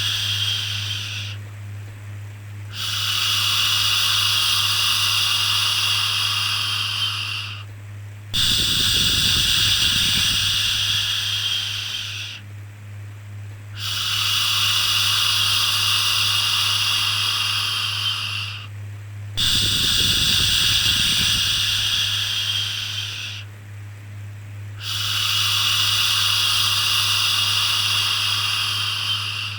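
Shushing 'shhh' sounds for soothing a baby, each held about four seconds, then a short break, five times over, with a steady low hum underneath.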